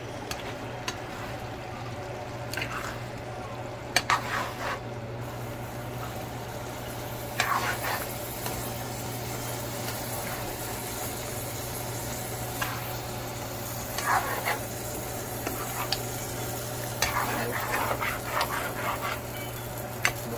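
Chicken leg curry sizzling in a frying pan while a spoon stirs it, scraping and knocking against the pan a handful of times, over a steady low hum.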